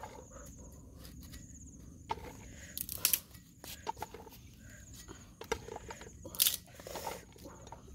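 Scattered clicks and light knocks as okra pods are handled in an aluminium pot and their ends trimmed with a cleaver, the sharpest knock about six and a half seconds in.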